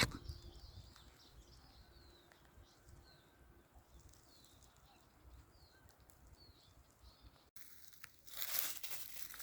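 Faint chirps of small birds, repeating in the background. After an abrupt cut near the end comes a brief burst of rustling noise about a second long.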